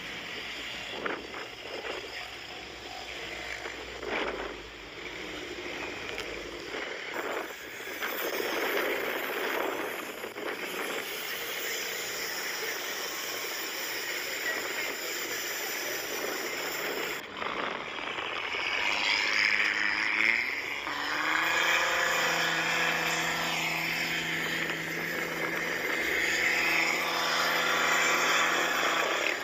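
Noise for the first two-thirds, then an engine revs up about two-thirds of the way in and holds at a steady high pitch under load. This is a vehicle pulling a pickup truck stuck in the sand free on a tow strap.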